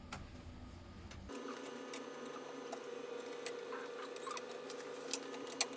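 Faint small clicks and scratchy handling sounds as parts of a beauty device are fitted by hand, over a faint steady hum.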